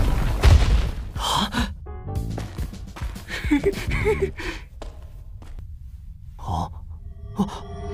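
A low rumble of tumbling rocks dies away, then a large wolf creature gives a few short breathy huffs and sighs, some with a brief wavering whine, over faint background music.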